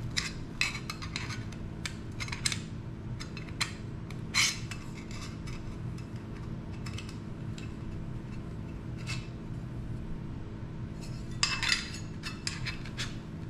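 Light clicks and clinks of the small black case of a QRP Labs QCX Mini radio kit being handled and its pieces turned over in the hands. They come in scattered clusters, the loudest about four seconds in and a quick run near the end, over a steady low hum.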